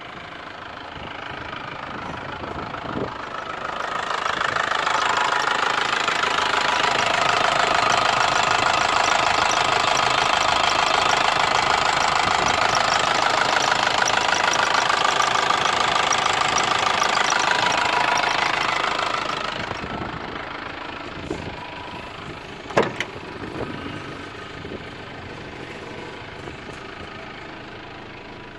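Volkswagen LT 35's 2.8-litre four-cylinder turbo-diesel idling with a steady diesel clatter. It grows much louder for about fifteen seconds in the middle, then drops back. One sharp knock comes about three quarters of the way through.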